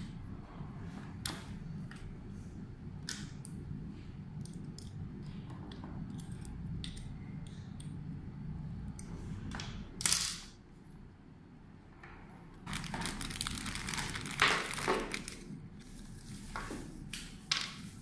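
Handling noise from a plastic wireless bullet security camera and its cables: scattered light clicks and knocks, a short loud rustle about ten seconds in, and a stretch of crinkling rustle in the second half, over a low steady hum.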